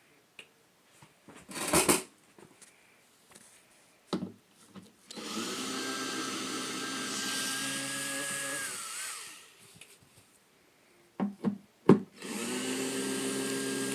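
Electric drill/driver running steadily with a high whine for about four seconds while backing out screws on a speaker cabinet, then winding down. It starts again near the end after a couple of sharp clicks. A single loud knock comes early, about two seconds in.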